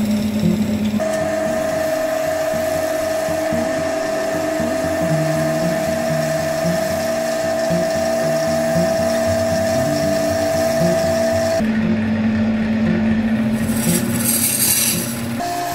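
Wood lathe running with a steady high whine while a turning tool cuts the spinning wooden blank. The sound changes abruptly about eleven seconds in, and a harsh scraping hiss of the tool on the wood comes near the end.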